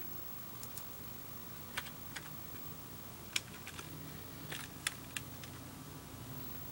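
Computer keyboard keys being pressed: about nine light, irregularly spaced taps over a faint steady hiss.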